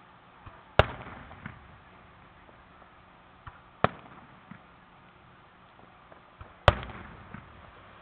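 Aerial fireworks shells bursting: three loud booms about three seconds apart, each trailing off in a short echo. Fainter pops fall between them.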